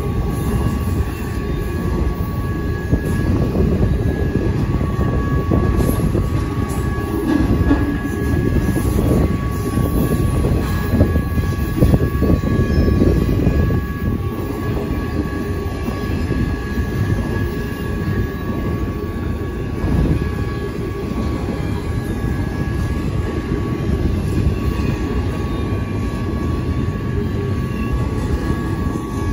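Intermodal freight train's container and trailer cars rolling past a grade crossing with a steady heavy rumble of wheels on rail. Over it, the crossing's GS Type 1 electronic bell rings as a steady two-pitch tone.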